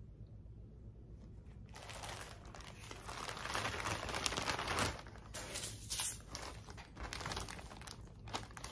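Plastic packaging crinkling as it is handled: quiet for the first couple of seconds, then dense crinkling for about three seconds, followed by shorter crinkles as a clear zip-top plastic bag is pulled open.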